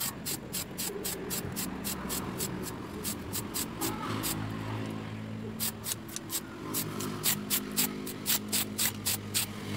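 Aerosol spray paint can, a quick run of short sharp bursts about four a second, breaking off for about two seconds in the middle and then resuming.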